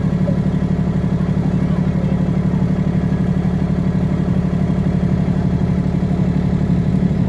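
Small boat's inboard engine running steadily under way, with a rapid even beat.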